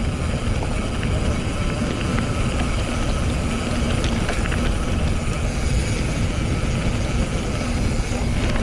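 Wind buffeting an action camera's microphone, with the rolling rumble and rattle of a mountain bike (Scott Scale RC hardtail) being ridden along a trail. The rumble is steady and heavy, with a few faint clicks scattered through it.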